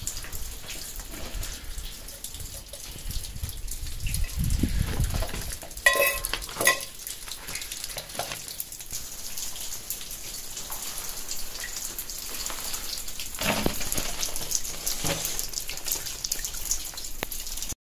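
Steady patter of rain on rocks and gravel. About six seconds in, a metal camping mug clinks twice against the stones, ringing briefly.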